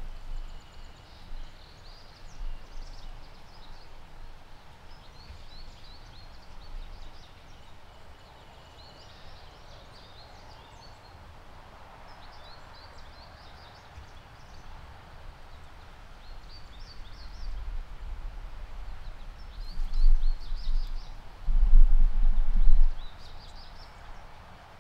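A small songbird singing short, high chirping phrases every few seconds. Low rumbling noise builds on the microphone in the last few seconds and is the loudest sound.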